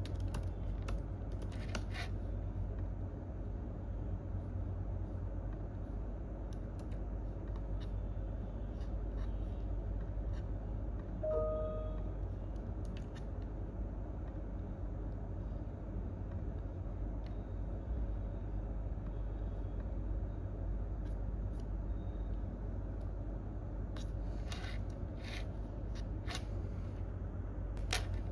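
Sparse computer keyboard and mouse clicks over a steady low hum of room noise, with a few clicks near the start and a burst of clicks near the end. A brief squeak-like tone sounds once, about eleven seconds in.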